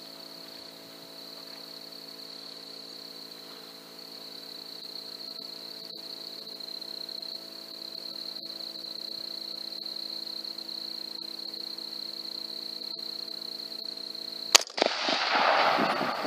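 A steady high electronic whine and hum, then a single .223 rifle shot about fourteen and a half seconds in, followed by a second or so of loud, noisy rushing sound.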